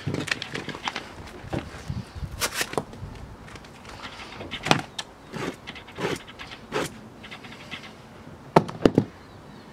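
Box cutter slashed again and again across a cotton hoodie on a table, each stroke a short scraping rip as the blade cuts the outer fabric down to the Kevlar lining. There are about a dozen strokes, the loudest three in quick succession near the end.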